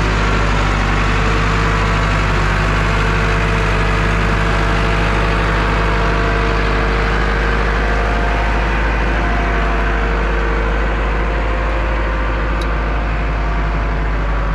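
International Hydro tractor's diesel engine running steadily, with a deep, even hum and no change in speed.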